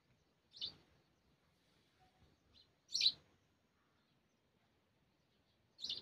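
Small bird chirping: three short, sharp, high chirps spaced about two and a half to three seconds apart.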